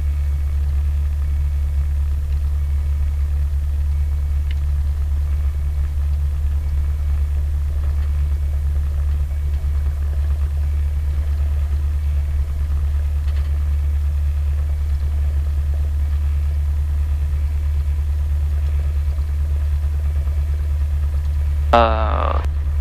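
Cessna 172's piston engine and propeller running steadily at low power, heard from inside the cockpit as an even, low drone.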